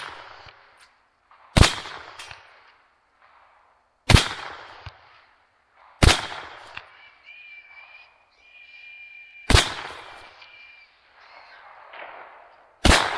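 Five rifle shots at feral hogs, roughly two seconds apart, each followed by a short echo rolling off across the open pasture. Between the fourth and fifth shots comes a high, drawn-out animal squeal lasting a few seconds.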